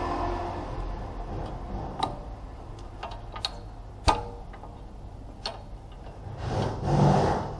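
A few separate sharp clicks, one about four seconds in the loudest, then a louder rubbing, scraping noise near the end.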